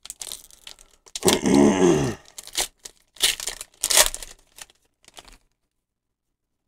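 Foil Pokémon booster-pack wrapper crinkling and tearing as it is ripped open by hand, in several separate bursts. About a second in, a short low hum sounds over it.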